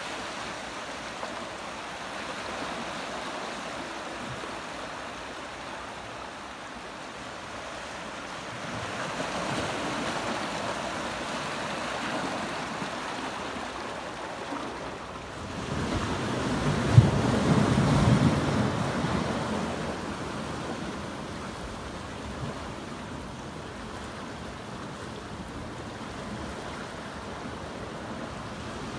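Ocean surf washing among shoreline rocks: a steady wash of water that swells about eight seconds in and again, louder, from about sixteen to nineteen seconds, with a brief sharp knock at the loudest point.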